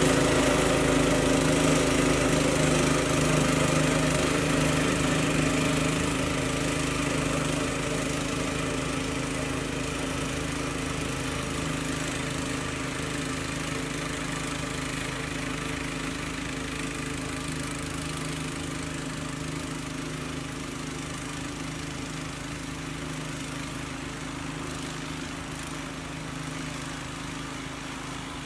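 Gas snowblower engine running at a steady speed while clearing snow, its sound growing steadily fainter as the machine moves away.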